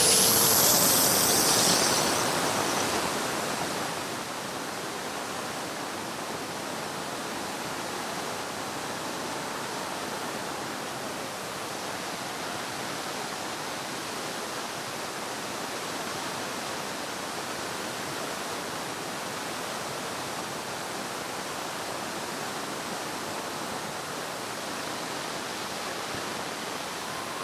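Steady rush of wind noise over an FPV drone's onboard camera, loudest for the first few seconds and then even, with the motors barely heard. A faint rising motor whine comes back near the end.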